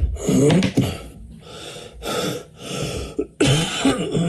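A man's dry cough in a run of several coughing bursts, the loudest at the start and near the end.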